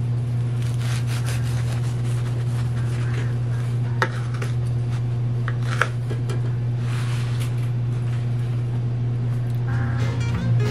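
Bread knife sawing back and forth through a crusty loaf on a bamboo cutting board, a rasping rub with each stroke and a couple of sharp taps midway, over a steady low hum.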